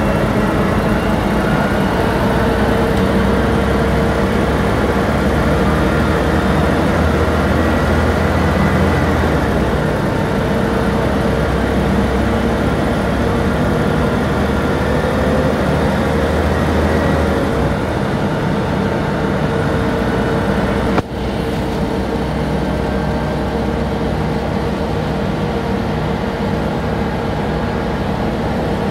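Diesel engine of a 1998 Volvo Neobus 405GZ city bus running, heard from inside the passenger cabin: a steady drone with a steady whine over it. The low drone changes twice, about a third and about two thirds of the way in, and a sharp click about three quarters of the way in is followed by a slightly quieter run.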